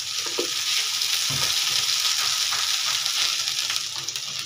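Ghee sizzling on a hot iron tawa around a jowar roti: a loud, steady frying hiss with a soft knock or two, cutting off suddenly at the end.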